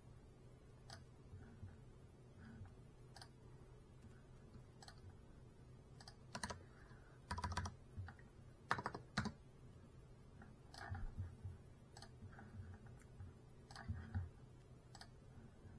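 Irregular light clicks and taps, scattered a second or two apart, bunching into quick runs about six to nine seconds in, over a faint steady hum.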